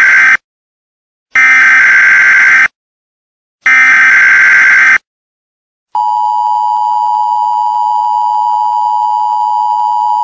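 Emergency Alert System header: the tail of one raspy digital data burst, then two more identical bursts about a second apart. About six seconds in, the steady two-tone EAS attention signal starts and holds.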